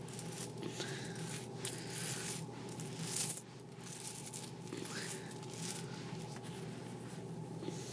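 Loose copper wheat pennies clinking and jingling together as hands scoop them into a pile and slide them across carpet. The loudest clatters come about two and three seconds in, and the clinking thins out after about six seconds.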